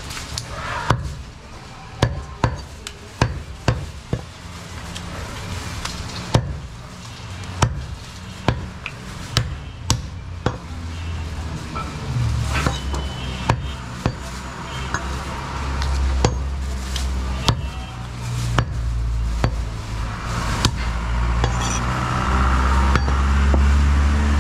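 Butcher's cleaver chopping goat meat and bone on a wooden log chopping block: sharp chops about one to two a second, thinning out in the second half. A low engine hum, likely from a vehicle, grows louder toward the end.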